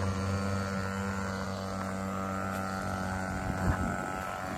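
Small combustion engine of a radio-controlled model airplane running steadily at a low, even speed, with a brief knock about three and a half seconds in.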